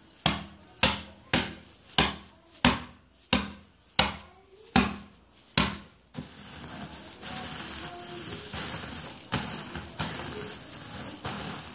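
A cloth bundle of roasted peanuts slapped down on a table about nine times, roughly one thump every two-thirds of a second. About six seconds in it switches to a steady rustle as the bundle is rubbed by hand. The beating and rubbing work the papery skins off the peanuts.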